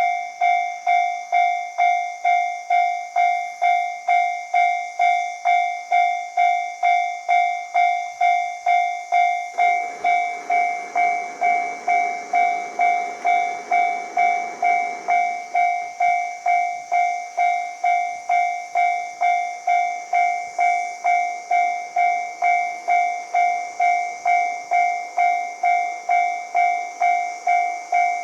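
Japanese railway level-crossing alarm bell ringing its steady electronic ding, about two strokes a second, warning of an approaching train. A rushing noise swells in under it about ten seconds in and fades out about five seconds later.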